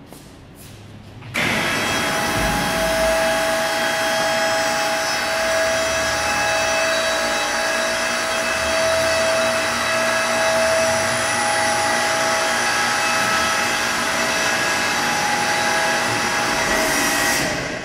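Pump motor on an FPEC vacuum paddle blender switches on suddenly and runs steadily with a whine and hiss while the hinged lid is raised, then winds down near the end.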